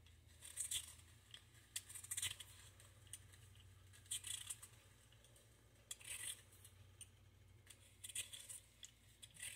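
Vegetable peeler scraping strips of skin off a raw potato: short, faint scrapes one every second or two, over a low steady hum.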